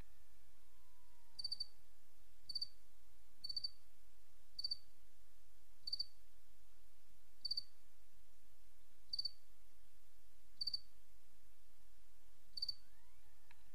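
A cricket chirping: short chirps of two or three quick pulses, repeating every second or two, over a low steady hum.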